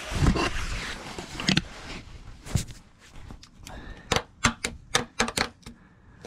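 Hands fitting a part onto a diesel heater's air-intake hose under a van: rustling handling noise, a couple of sharp clicks, then about four seconds in a quick run of about eight sharp clicks, roughly five a second.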